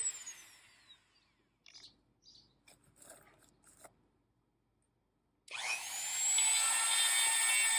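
Dremel rotary tool with a ceramic bit winding down, its high whine falling away, then a few faint handling sounds and a short silence. About five and a half seconds in it is switched on, the whine rising quickly to full speed, and the bit grinds against a chainsaw chain tooth to sharpen it.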